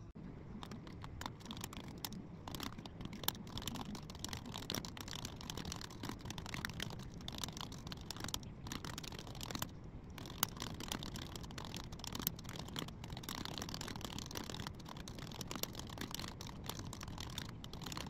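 Many light clicks and rustles of small objects being handled up close, coming irregularly throughout.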